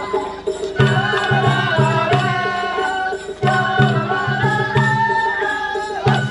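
Japanese festival hayashi: deep taiko drums beating in quick runs of strokes, about three to four a second with two short breaks, under a high bamboo flute (shinobue) melody.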